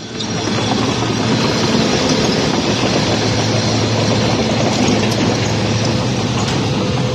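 Heavy diesel logging machinery running loud and steady, a constant low engine hum under dense rattling noise.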